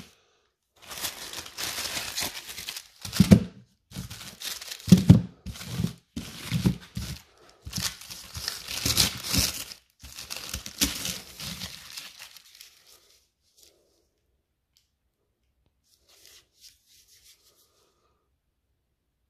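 Red paper wrapping of a pack of China-Böller II firecrackers being torn open by hand, in a series of rips and crinkles that stop about twelve seconds in; a few faint rustles follow later.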